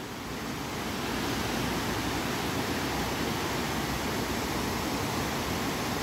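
Small river waterfalls cascading over rock ledges, a steady, even rushing of falling water.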